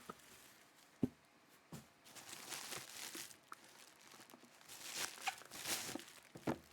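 Shipping packaging being opened by hand: crinkling and tearing of packing material, with a sharp click about a second in.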